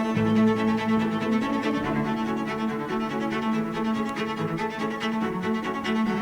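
Background music: sustained bowed strings, violin and cello, playing held notes.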